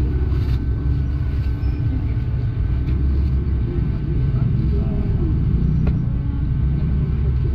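Street-market background noise: a steady low rumble under faint chatter from the crowd, with a single sharp click near six seconds.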